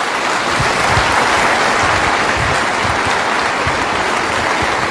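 An audience applauding, a steady dense clatter of many hands clapping.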